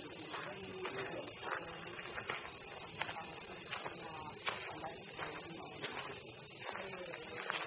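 Cicada chorus: a steady, high-pitched, unbroken buzz, with faint distant voices underneath.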